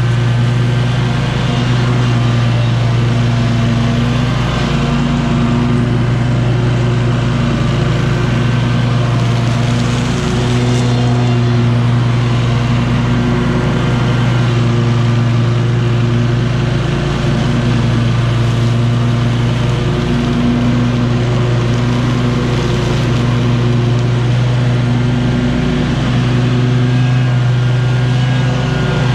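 Engine of a SCAG V-Ride 2 stand-on commercial mower running steadily while mowing, with a constant hum and slight wavers in pitch every few seconds.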